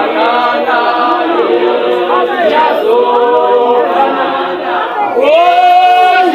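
A group of voices singing unaccompanied in harmony, their lines overlapping. About five seconds in they swell onto a loud held note. The recording sounds thin, with little bass or treble.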